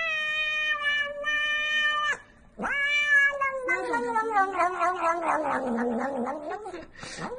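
A cat meowing in long, drawn-out calls: one held at a steady pitch for about two seconds, then a longer one that falls in pitch and turns wavering and rough, with another beginning right at the end.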